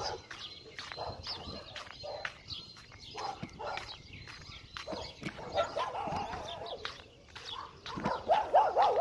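Dogs barking repeatedly in short, sharp barks, getting louder near the end.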